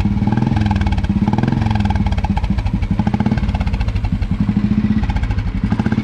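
1953 Royal Enfield Bullet's single-cylinder engine running with a rapid, even beat of exhaust pulses from its chrome silencer. It is a smooth-sounding engine.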